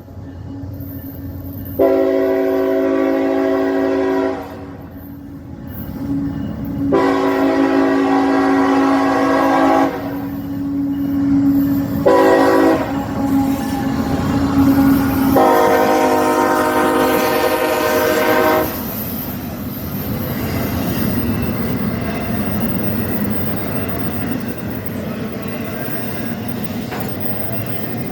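Locomotive air horn sounding the grade-crossing signal (long, long, short, long), the last blast ending a little before two-thirds of the way through. A train then passes with a steady rumble and wheels clattering over the rail joints.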